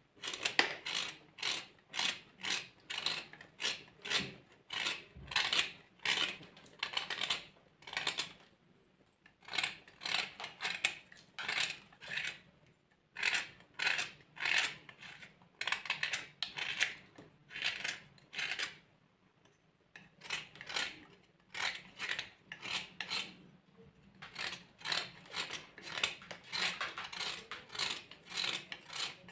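Dry clay being crushed and crumbled, a quick series of crisp crunches about two a second, broken by a few short pauses.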